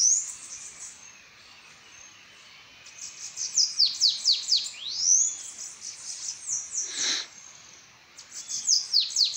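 Bananaquit (sibite) singing: thin, high phrases of rapid sweeping notes, a brief one at the start, a longer one in the middle and another starting near the end. A single short whoosh comes just after the middle phrase.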